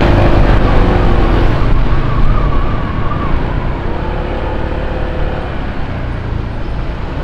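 Honda ADV 160 scooter's single-cylinder engine running while riding along, its pitch wavering a little, under a steady low rumble of wind on the helmet-mounted external mic.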